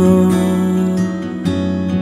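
Instrumental break of a Punjabi devotional song: steady held notes with a few plucked notes struck over them, no voice.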